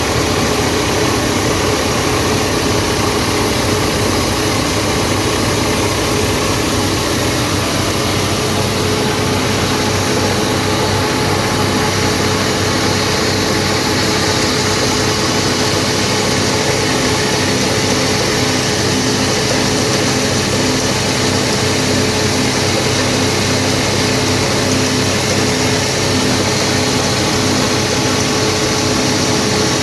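Wheat grain grading and cleaning machine running steadily: a constant mechanical drone with a steady hum running through it.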